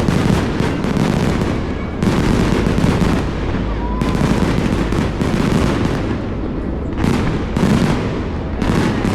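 Fireworks display going off in quick succession: sharp bangs and crackling reports, with a fresh loud volley every second or two and the echoes running into one another.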